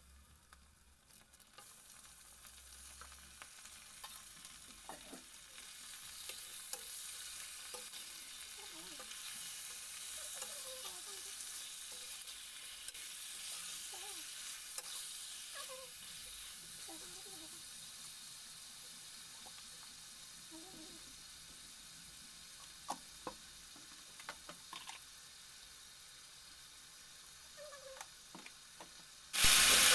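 Raw chicken pieces sizzling in hot oil and onions in a stainless steel kadai, with a steel spoon clicking and scraping against the pan as they are stirred. The sizzle builds from about two seconds in and slowly eases off; near the end a much louder hiss cuts in suddenly.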